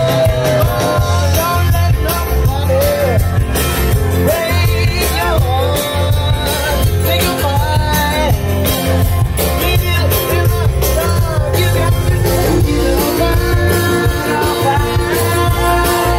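Live band playing an upbeat song: a lead singer over acoustic guitars, with a steady, strong beat.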